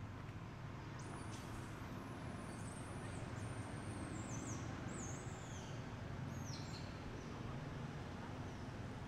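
Baby monkey crying: a string of thin, high-pitched squeals, each sweeping up and then falling in pitch, over a steady low rumble. The squeals fade out a little over halfway through.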